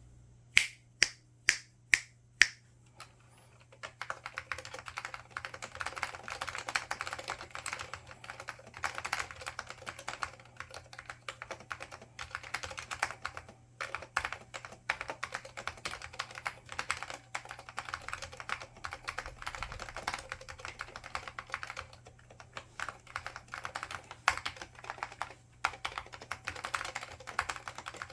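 Five sharp, loud clicks about half a second apart, then from about four seconds in steady, fast typing on an IBM 5556 Multistation keyboard: Alps SKCL Green switches under ABS doubleshot keycaps, a dense run of key clicks. A steady low hum lies underneath.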